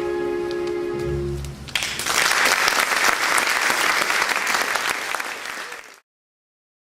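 The accompaniment's final held chord fades out, and then audience applause breaks out a little under two seconds in. The applause is cut off abruptly about a second before the end.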